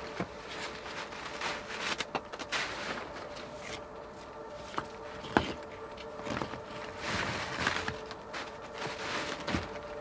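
Irregular rustling and handling noises with footsteps while a tarp is strung up, broken by a few sharp clicks and knocks, the loudest a little past halfway.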